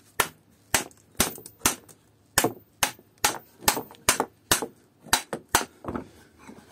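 About a dozen hammer blows, roughly two a second, striking the aluminium housing of a small pump electric motor to knock it apart because its seized stainless screws will not come out.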